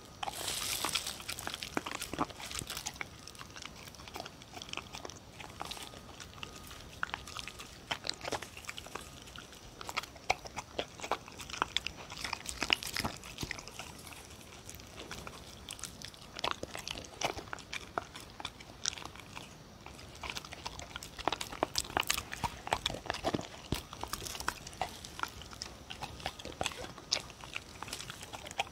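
A dog eating a soft mash of scrambled egg, sweet potato and paprika from a bowl, close to the microphone: wet chewing and lapping, with many irregular sharp clicks throughout.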